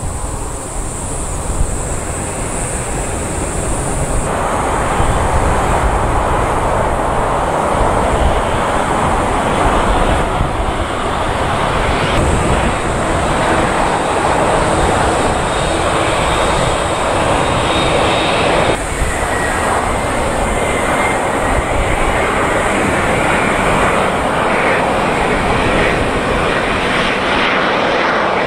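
Jet airliner turbofan engines running, a steady roar of airliners on approach and on the ground. The roar shifts abruptly several times as one aircraft gives way to the next.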